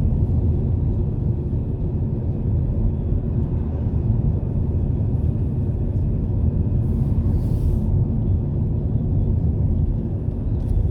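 Steady low road and engine rumble heard inside a moving car's cabin, with a brief hiss about seven seconds in.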